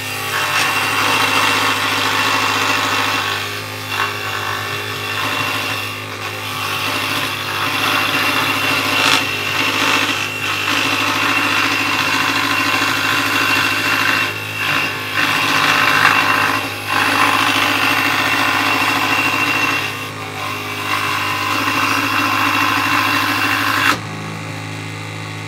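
Scroll saw cutting a curve through a plywood block: a steady motor hum with the rasp of the blade in the wood. About a second and a half before the end the cutting noise drops away, leaving a quieter hum.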